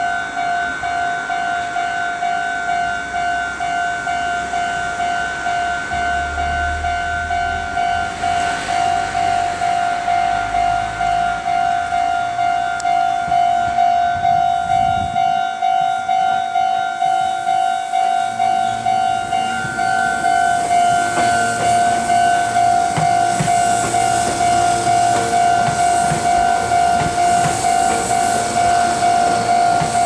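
Japanese level-crossing warning bell ringing in a steady, evenly repeated two-tone clang. In the last several seconds a Meitetsu 2000-series μSKY coupled to a 3100-series set approaches and runs through the crossing, its wheel and rail noise building under the bell.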